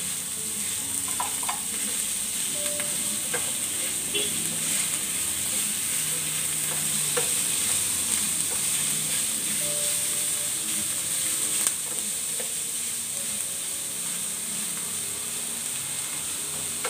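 Ground pork frying with onion and garlic in a frying pan: a steady sizzle, with the wooden spatula stirring and scraping through it in small clicks, and one sharper knock about twelve seconds in.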